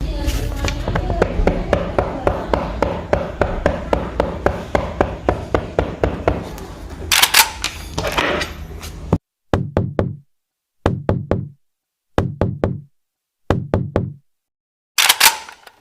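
A fast run of sharp knocks over a low rumble for about nine seconds, with a brighter noisy burst near the end of it. Then comes a short low knock-like thud repeated about every second and a half.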